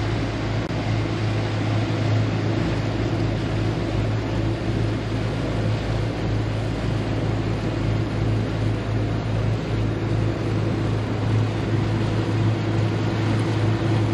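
Steady low drone of a 1999 Carver 504 motor yacht's engines running under way, with water rushing past the hull.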